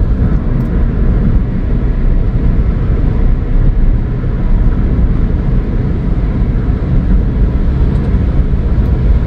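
Steady low road and engine rumble heard inside the cabin of a Ford Fiesta with the 1.0 EcoBoost three-cylinder turbo engine, driving at highway speed.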